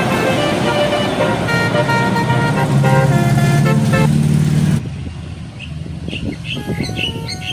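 Indonesian bus 'telolet' horn playing a melody of stepped tones over bus engine noise that grows louder, cut off abruptly about five seconds in. A quieter passage with short chirps follows.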